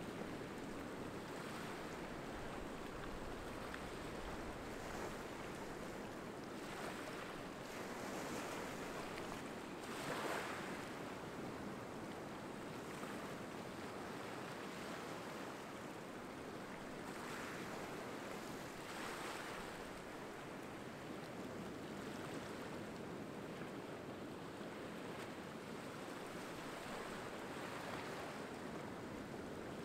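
Small waves washing in over a sandy, pebbly shore among rocks: a steady surf hiss that swells every few seconds as each wave breaks and runs up, the strongest about ten seconds in.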